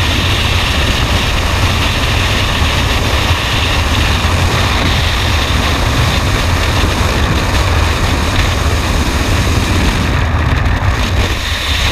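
Freefall wind buffeting a helmet-mounted camera's microphone: a loud, steady rushing roar, heaviest in the low end.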